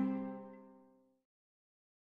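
Background music ending: a final held chord dies away over about a second, followed by silence.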